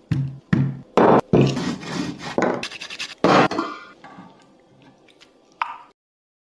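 Dishes and cutlery clattering and clinking in a string of sharp, ringing hits, which fade and cut off suddenly near the end.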